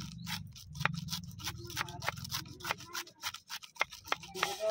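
Kitchen knife shredding a head of cabbage on a wooden chopping board: quick, regular crisp strokes, about five a second, each blade cut ending in a tap on the board.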